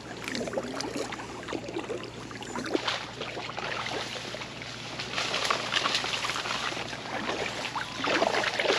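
Kayak paddle strokes splashing and dripping in floodwater beside an inflatable packraft, in uneven bursts of splashing.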